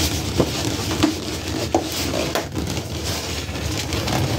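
Inflated latex balloons rubbing and squeaking against one another as they are handled and pushed into a clipped cluster, with a few sharp clicks along the way.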